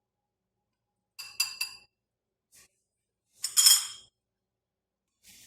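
Kitchenware clinking: a short cluster of ringing clinks about a second in, then a single louder ringing clink near the middle.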